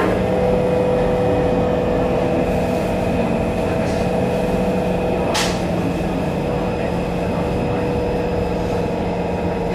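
Interior running noise of a C151 MRT train: a steady rumble with a constant hum held at one pitch, and one sharp click about five seconds in.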